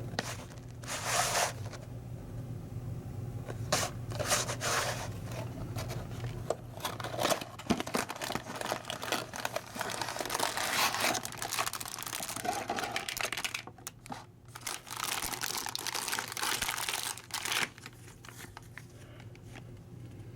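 Plastic packaging crinkling and tearing in irregular rushes, typical of LEGO parts bags being handled and torn open, over a steady low hum.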